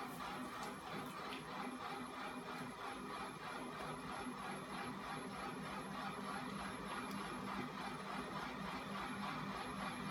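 Homemade battery-and-electric-motor-driven flywheel and crank-linkage machine running steadily: the spinning weight-plate flywheel and swinging crank arms make a continuous mechanical whir.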